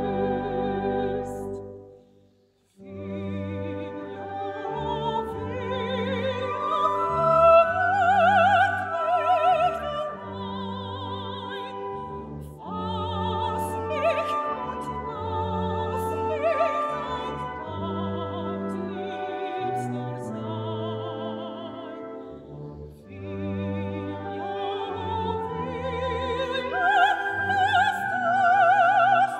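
Operatic soprano singing with strong vibrato, accompanied by a wind band playing sustained chords with clarinets and brass. The music breaks off briefly about two seconds in, then resumes.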